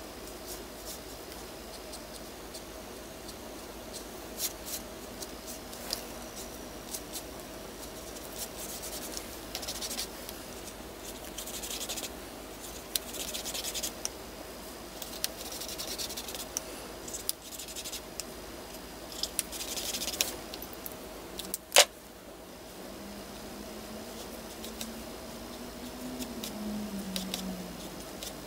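India ink brush markers rubbing and scratching over paper in short repeated strokes as colour is laid in. A single sharp click about three-quarters through, then a low wavering tone near the end.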